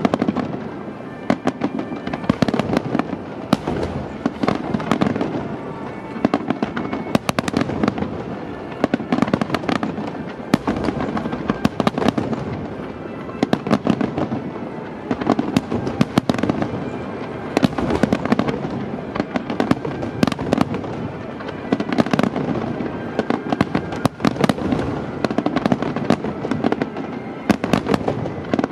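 Finale barrage of aerial firework shells: a dense, unbroken run of bangs and crackling bursts, several a second, over a continuous rumble. Music plays underneath.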